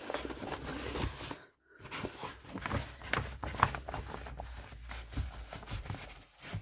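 Wallpaper rustling and crinkling as a roll is unrolled and pressed flat against a wall by hand, with many small scrapes and crackles. It drops out briefly about a second and a half in.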